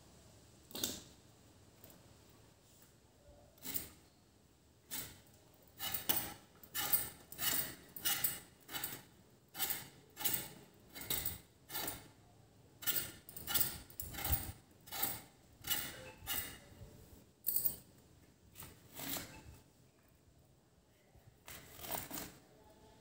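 Small kitchen knife cutting pointed gourds (parwal) held in the hand: a series of crisp cuts through the firm vegetable, a few at first, then about two a second through the middle, thinning out near the end.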